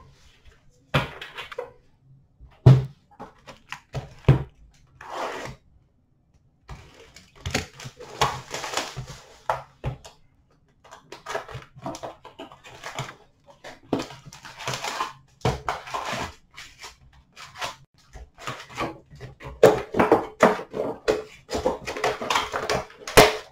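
Hockey trading cards and their cardboard and plastic packaging being handled: irregular rustling and crinkling with light knocks and clicks, as a hobby box of foil packs is unwrapped and its lid lifted open near the end.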